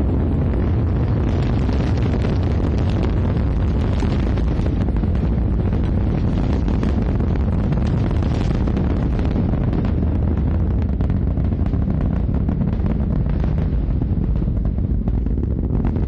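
Rocket launch: the engines and solid rocket boosters firing through liftoff and ascent, a loud, steady rumble with continuous crackling.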